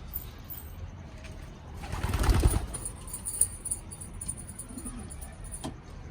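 Domestic pigeons cooing, with one loud, brief burst of sound about two seconds in and a sharp click near the end.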